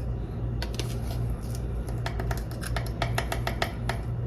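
Metal spoon clinking and scraping against a container as chicken bouillon is measured out: a few scattered clicks, then a quick run of clinks in the second half. A low steady hum runs underneath.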